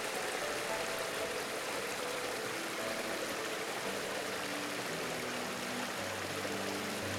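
Small mountain brook running and splashing down low rocky cascades: a steady rush of water. Soft background music of slow held notes plays underneath, with lower notes joining near the end.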